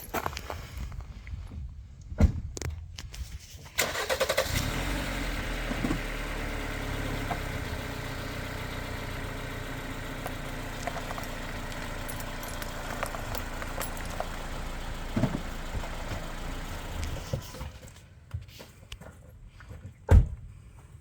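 A vehicle's engine starts about four seconds in and runs steadily while the vehicle rolls slowly over a pistol lying in gravel. The engine sound drops away about four seconds before the end. There are a few knocks, the loudest a sharp thump near the end.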